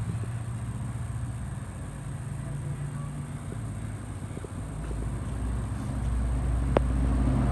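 A motor vehicle's engine running with a low, steady hum that grows louder after about five seconds, and one sharp click near the end.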